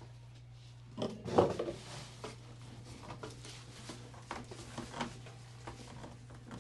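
Knocks, clatter and rubbing from objects being handled, loudest just after a second in and then lighter and scattered, over a steady low hum.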